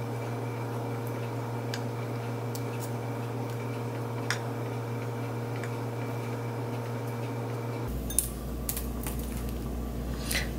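Faint clicks and soft taps of metal kitchen tongs picking up halved scallops from a wooden cutting board and setting them on sauced bread slices, over a steady low hum. The hum changes abruptly near the end.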